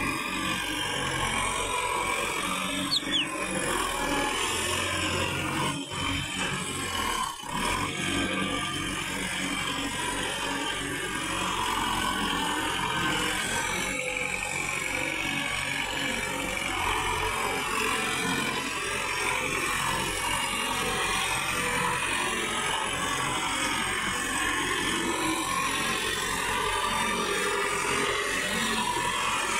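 Sonalika tractor's diesel engine running steadily under load as it drags a rotavator through flooded paddy soil, puddling the field.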